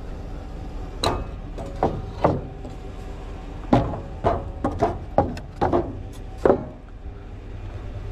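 Heavy wooden boards knocking and clattering as they are slid and set down onto a steel flatbed truck bed, about a dozen hollow knocks over five seconds, some in quick pairs.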